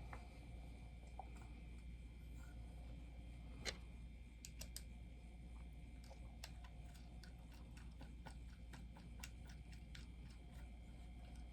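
Faint scattered clicks and taps of a plastic bobblehead being handled and fitted onto its display base, over a low steady hum.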